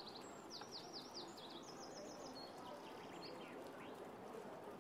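A small songbird singing in quick runs of high, repeated chirping notes, mostly in the first half, with fainter phrases a little later, over a faint steady outdoor background hiss.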